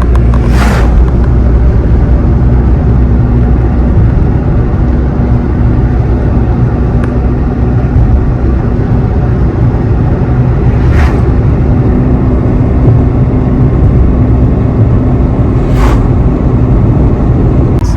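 Car driving along a road, heard from inside: a loud, steady low rumble of engine and road noise, broken three times by a brief sharp noise.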